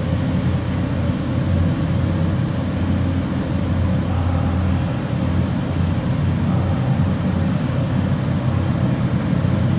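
A steady, low mechanical hum with a hiss over it, unchanging throughout.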